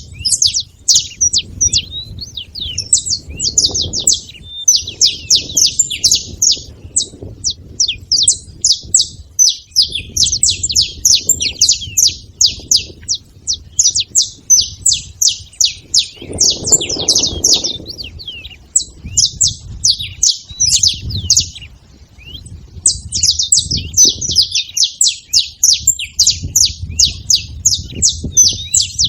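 Saffron finch (canário-da-terra) singing a long, fast run of sharp, high chirping notes, with short breaks about ten, nineteen and twenty-two seconds in.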